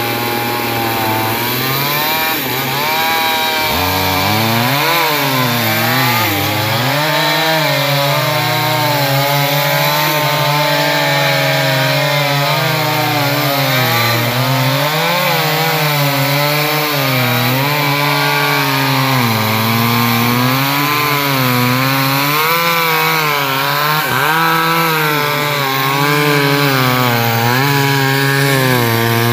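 Chainsaw cutting through a large teak trunk. It runs at a steady pitch for the first few seconds, then its pitch keeps dipping and recovering as the chain bites into the wood under load.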